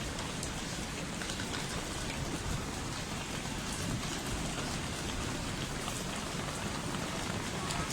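Steady rain falling on a surface: an even hiss with faint scattered patter.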